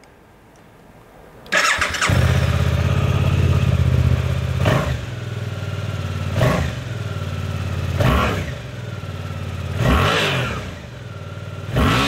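Suzuki GSX-8R's 776 cc parallel-twin with a 270-degree crank starting about a second and a half in and settling into idle. It is then revved in neutral with about five quick throttle blips, one roughly every two seconds.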